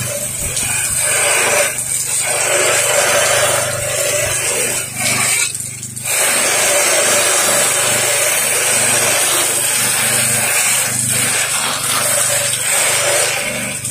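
Pressure washer spraying water from the wand at light pressure, rinsing gutter brightener off a gutter, with the machine's steady hum underneath. The spray cuts out briefly a few times.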